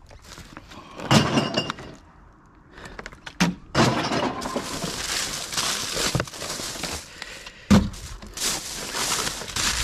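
Glass clattering and breaking: a couple of knocks, then a long rattling crash lasting about three seconds, a sharp knock, and more rattling.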